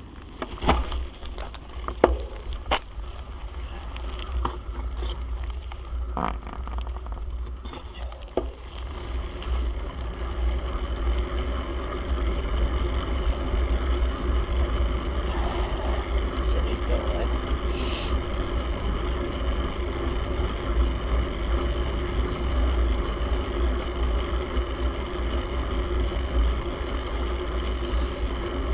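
Several sharp clicks and knocks in the first few seconds, then a steady low rumble of wind on the microphone with a faint steady hum over it, growing louder about nine seconds in.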